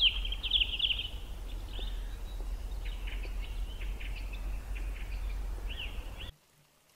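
Birds chirping and trilling over a steady low rumble, cutting off abruptly about six seconds in.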